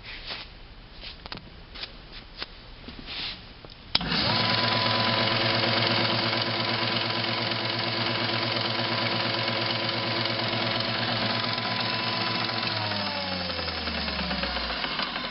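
A few light knocks and clicks, then the Iida Mini Forte planer is switched on about four seconds in. Its motor and cutterhead run with a steady hum and whir. Near the end it is switched off and spins down, its pitch falling.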